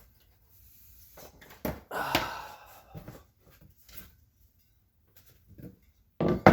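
Knocks and clatter of tools and parts being handled on a workbench, loudest about two seconds in and again with a sharp knock near the end.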